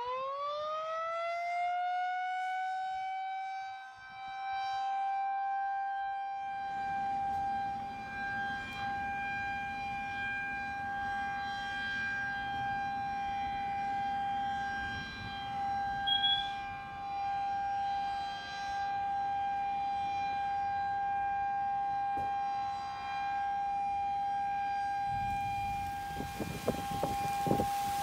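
Outdoor civil defense warning siren winding up at the start and then holding one steady tone. From several seconds in, wind and heavy rain rush beneath it, and gusts buffet the microphone near the end.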